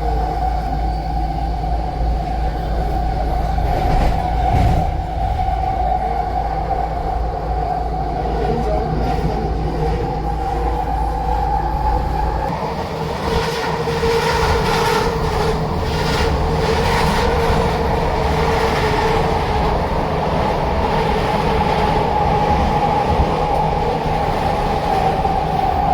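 A train passing close by, with a steady pitched tone held over a low rumble. The low rumble drops away about halfway through while the tone carries on.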